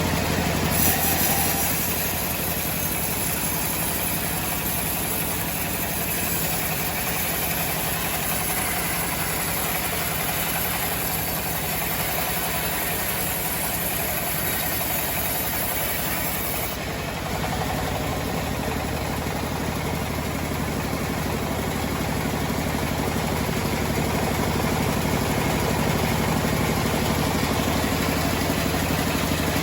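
Homemade sawmill running steadily with a continuous engine-like drone and vibration. A high hiss over the drone drops away a little past halfway.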